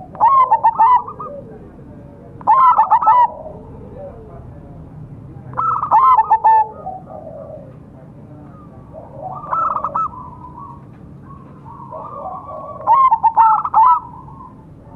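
Zebra dove (perkutut) singing: five short phrases of rapid, rolling coos, repeated about every three seconds.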